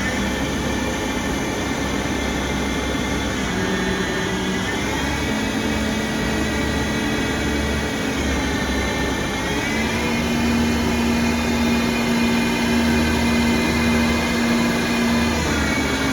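Harrison Alpha 400T CNC lathe running with a steady mechanical whine that steps up in pitch a few times.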